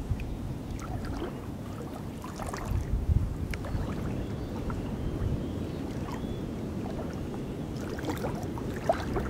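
Outdoor ambience of wind rumbling on the microphone over calm, shallow lagoon water, with a few faint clicks.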